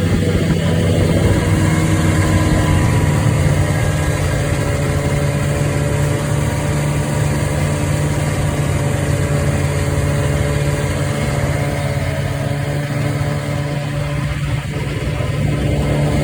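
A two-stroke snowmobile engine running steadily under way, its pitch easing a little about twelve seconds in and picking up again near the end.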